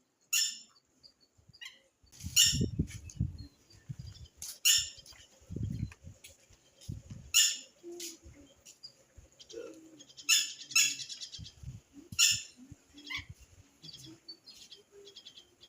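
A bird giving short, sharp chirping calls every couple of seconds, with low thuds and rustling in between.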